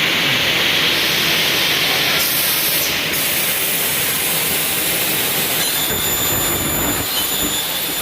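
Large double-head aluminium cutting saw running, its 3 kW-plus blade motors spinning with a loud, steady rushing hiss like a strong wind. A thin high whine joins in about six seconds in.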